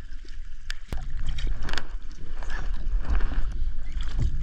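Water sloshing around a boat, with a low rumble of wind on the microphone and a few sharp knocks about a second in.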